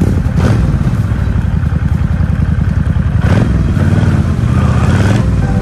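Bobber motorcycle engine running at low speed with a steady low pulsing rumble as the bike rolls onto a ferry deck, with three brief clatters.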